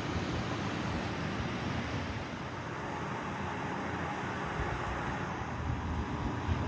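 A 52-inch Harbor Breeze Geneva ceiling fan with a 188x15mm spinner motor running, giving a steady rush of air from the blades with a low rumble underneath.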